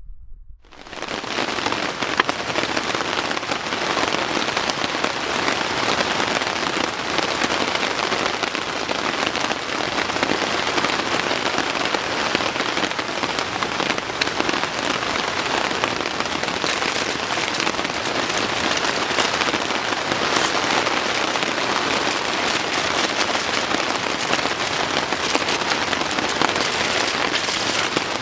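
Steady heavy rain, a dense patter of drops hitting a surface, starting abruptly about half a second in.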